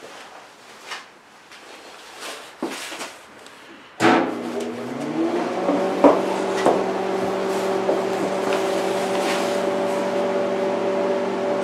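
Stick welder switched on about four seconds in: a sudden, steady electrical hum with a cooling fan spinning up under it and settling to a constant drone. A few light clicks come first, and a couple more come while the electrode holder is handled.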